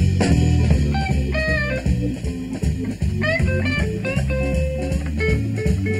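Southern rock band playing a blues number live: a lead electric guitar plays short phrases with notes bent upward, over steady bass guitar and drum kit.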